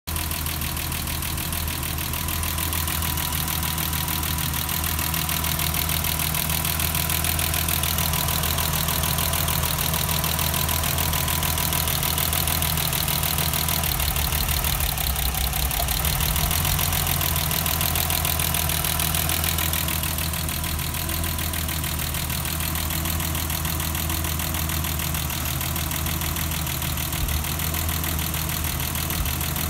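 BMW M20B25 straight-six engine idling steadily, with a fast, even ticking over the engine note.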